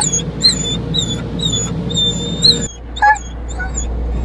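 A Doberman whining in short, high-pitched squeals about twice a second, with a sharper yelp at the start and another about three seconds in, over the steady hum of automatic car-wash machinery heard from inside the car.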